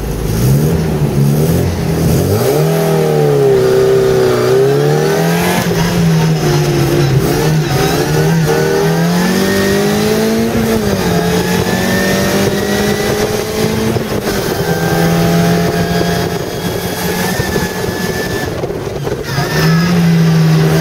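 A Mk1 Mini Cooper S's four-cylinder engine, heard from inside the cabin, pulling away from the start line and driven hard up the hill. The engine note climbs in pitch and drops back at each gear change, over and over. There is a short lift near the end before it revs up again.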